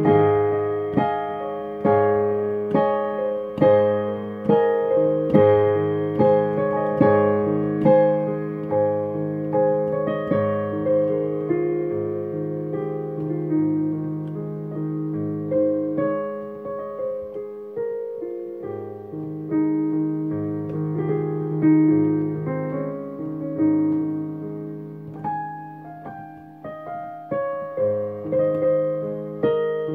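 Solo digital piano: a gentle piece of melody notes struck one after another over held low notes. It softens in the middle and picks up again near the end.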